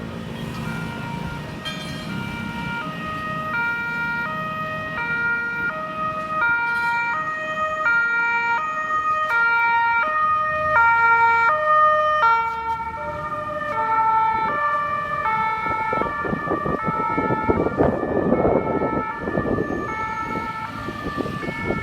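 Ambulance siren sounding a two-tone hi-lo pattern, switching between two pitches about every half second and growing louder toward the middle. Road and engine noise rises under it in the last few seconds.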